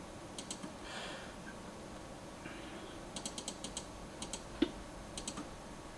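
Computer mouse button clicking, each click a quick press-and-release pair: a couple early on, then a rapid run of clicks about three seconds in. A single duller knock a little later is the loudest sound.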